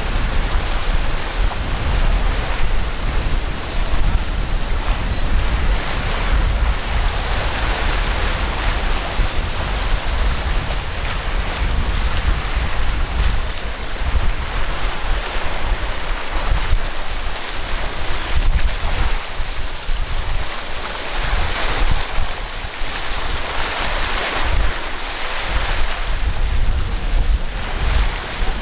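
Strong wind buffeting the microphone in gusts, over the steady wash of surf and choppy waves.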